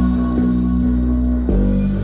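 Background music of sustained chords over a steady bass, moving to a new chord about a second and a half in.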